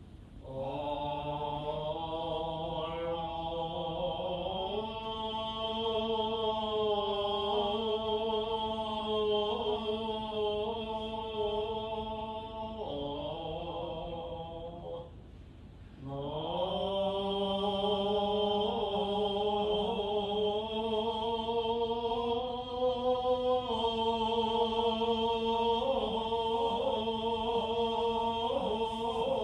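A Shingon Buddhist priest chanting in long, drawn-out, sustained tones, with a pause for breath about halfway through before the chant resumes.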